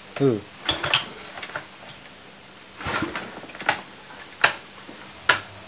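Honda Vario engine turned over on the kick starter with the ignition off, to test a newly fitted cam chain tensioner: two short rushing clatters, then a few sharp metallic clicks.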